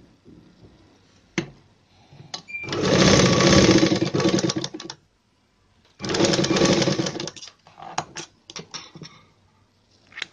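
Sewing machine running in two bursts of fast stitching, the first about two and a half seconds long and the second about a second and a half, as fabric strips are joined. A few short sharp clicks follow near the end.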